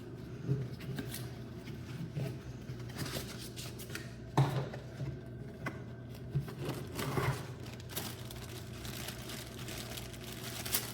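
Cardboard box and plastic packaging being opened and handled: irregular rustling and crinkling with a few sharper knocks, the sharpest about halfway through, over a low steady hum.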